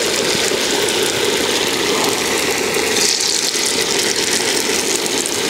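Batter-coated green gram balls deep-frying in hot coconut oil in an iron kadai: a steady, even sizzle.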